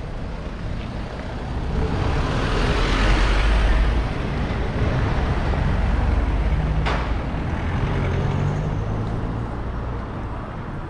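Street traffic passing close by: a vehicle's tyre and engine noise swells to a peak about three to four seconds in, then a car engine runs nearby with a low rumble. There is one sharp click about seven seconds in.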